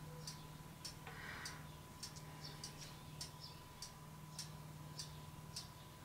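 Faint sharp ticking, roughly two ticks a second and not quite even, over a steady low hum, with a brief soft rustle about a second in.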